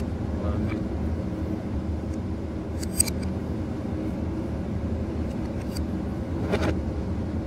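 Steady low machinery hum, with a sharp metallic click about three seconds in and a short clank near the end as a spanner works on the lifeboat engine's alternator mounting.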